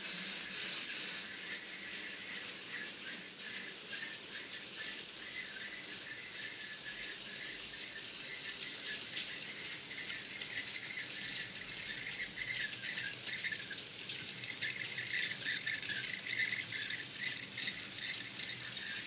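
A 00 gauge model mineral train running along the track, its wheels rattling and clicking over the rail joints, with an on-and-off high whine that grows stronger towards the end.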